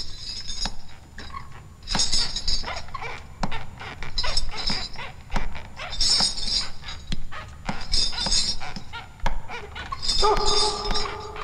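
Metal chains and handcuffs clinking and jingling in bursts about every two seconds as a chained line of prisoners shuffles along. Near the end a pitched, whimpering cry comes in.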